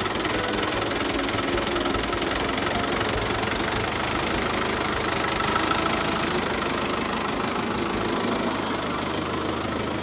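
Fiat 640 tractor's diesel engine running steadily.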